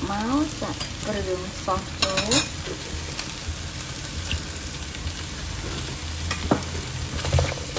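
Squid and shrimp sizzling in a hot nonstick pan while a spatula stirs and scrapes them, with a few sharp knocks of the spatula against the pan about two seconds in.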